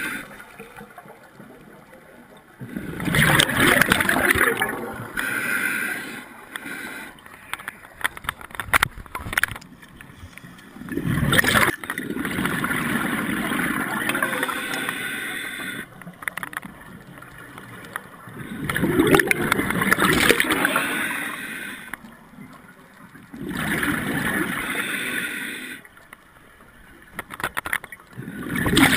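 Scuba regulator breathing underwater: exhaled bubbles rush out in bursts every several seconds, with quieter inhaling between. A run of sharp clicks sounds about a third of the way in.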